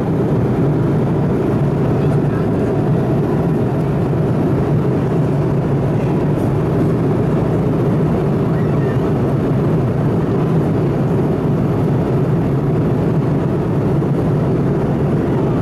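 Steady cabin noise of an Airbus A330-200 at cruise: a constant low roar of airflow and engines, with a steady hum underneath and no changes.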